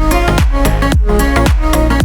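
Background electronic dance music, house-style, with a steady kick drum about two beats a second under held synth chords.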